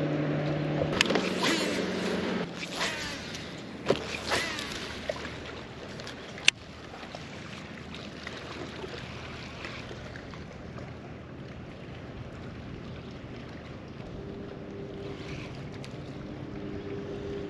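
Sounds aboard a fishing boat on open water: a steady low motor hum at the start and again near the end, over wind and water noise. Between them come a few knocks and clicks, the sharpest about six and a half seconds in.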